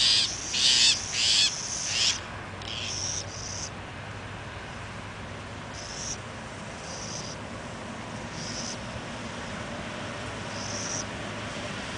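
Juvenile burrowing owls squabbling, giving harsh raspy screeches about one every half second for the first two seconds, then shorter, fainter rasps every second or two.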